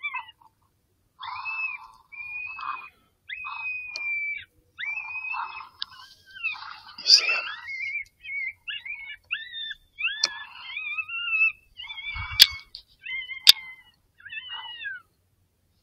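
A run of short, high-pitched animal calls, each rising and falling in pitch, coming one after another with short gaps. Near the end there are two sharp clicks about a second apart.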